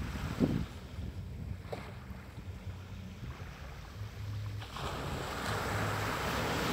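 Small waves breaking and washing up on a sandy beach, with low wind rumble on the microphone. A wave breaks and washes in with a swelling hiss about five seconds in.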